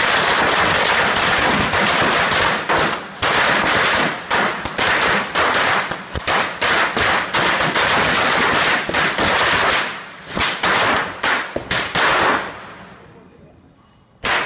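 A string of firecrackers going off on the ground in a rapid, unbroken run of bangs. It breaks up into separate cracks about ten seconds in and dies away soon after, with one more loud single bang near the end.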